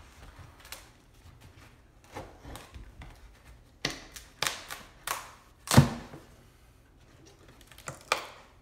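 Plywood crate boards being pried and pulled off by hand: a series of sharp cracks and knocks as the nailed and glued wood gives way, the loudest nearly six seconds in.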